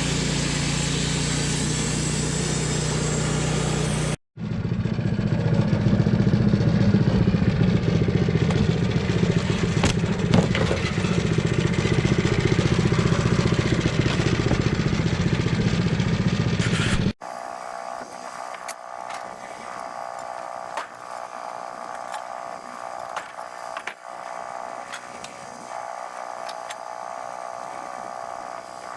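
Small gasoline engine running in three separate clips with abrupt cuts: a steady run first, a louder, busier stretch in the middle, then a quieter, thinner stretch with some ticking.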